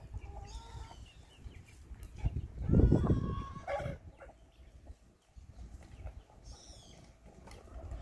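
Chickens clucking, with a louder, longer call about three seconds in and brief high chirps near the end.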